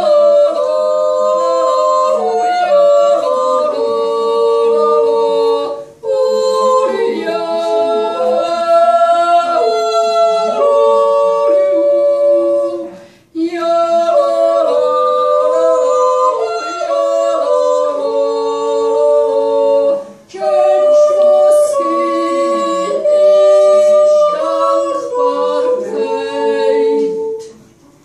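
Two women singing a wordless Swiss yodel duet without accompaniment, in two-part harmony, in four long phrases with short breaks about 6, 13 and 20 seconds in.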